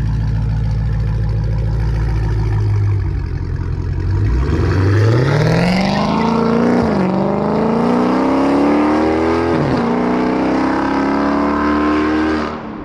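Dodge Charger Scat Pack's 6.4-litre 392 HEMI V8 through a resonator-delete catback exhaust, heard from outside the car: it idles for about four seconds, then accelerates hard at full throttle. The engine note climbs, drops twice at upshifts and climbs again each time.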